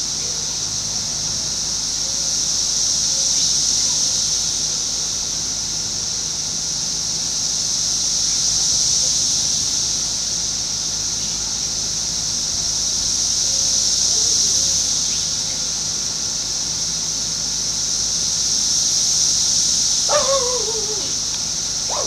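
Brood X periodical cicadas (17-year cicadas) singing in a steady, high-pitched chorus that swells and fades about every five seconds. Near the end a short falling cry sounds once over the chorus.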